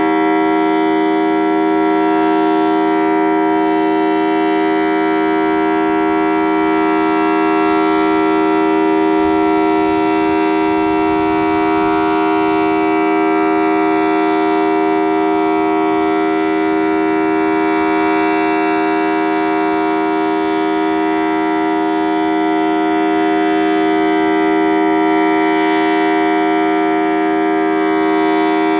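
Federal Signal Thunderbolt 1000T civil defense siren with a 4/5-port rotor, held at full speed and sounding a steady two-tone chord, the alert signal of a siren test. The pitch stays level while the loudness swells gently now and then.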